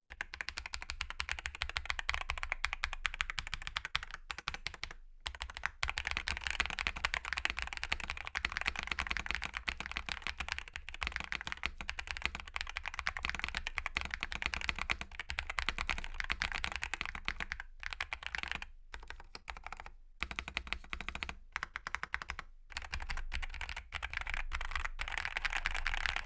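Fast, continuous typing on a GMK67 mechanical keyboard with Akko V3 Lavender Purple Pro tactile switches and Cherry-profile PBT keycaps. The case is tape-modded and foam-dampened. The key strokes come in a dense run, broken by a few short pauses.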